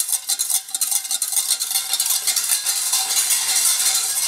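Wire balloon whisk scraping and clicking rapidly against a stainless steel saucepan as it stirs a thick butter-and-flour roux, the first stage of a béchamel sauce.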